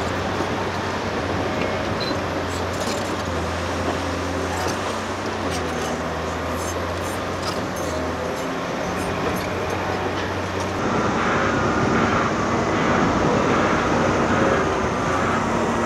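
Heavy diesel earthmoving machinery running with a steady low engine drone and scattered light clicks. About eleven seconds in it grows louder and rougher.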